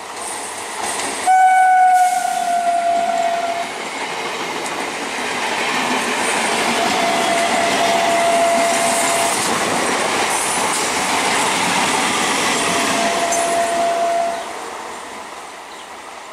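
Electric multiple-unit local train passing at speed: its horn sounds a long single-note blast about a second in and twice more while the coaches rush past with wheel clatter. The passing rush drops away suddenly near the end.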